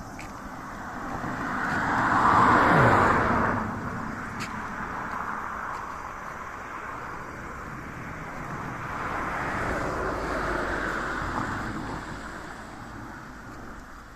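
A road vehicle passing close by, loudest between two and three seconds in, its engine note dropping in pitch as it goes past; a second vehicle passes more softly around ten seconds in.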